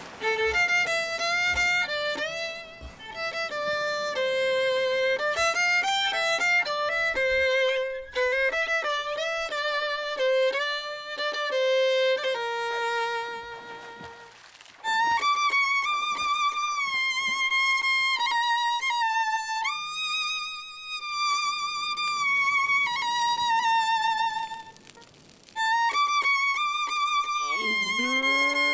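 Background music: a solo violin melody with vibrato, moving from note to note with held tones. The music drops away briefly twice before picking up again.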